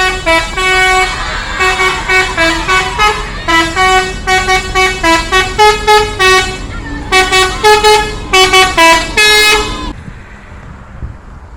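Bus telolet horn, a multi-tone musical air horn, playing a quick melody of short stepped notes in several phrases. It cuts off sharply near the end, leaving a quieter steady background noise.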